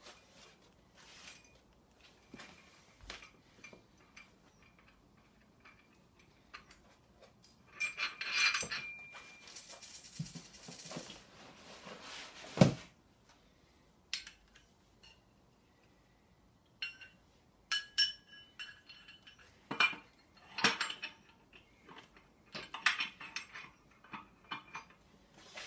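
Metal parts of a crane scale being handled: the steel hook, spacer and load pin clinking and knocking against the scale's fitting, in scattered short clinks with one louder knock about halfway through.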